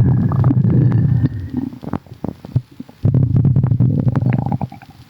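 A person's stomach rumbling and gurgling with bubbly pops: one long low rumble at the start and another about three seconds in, with many small pops and clicks between them.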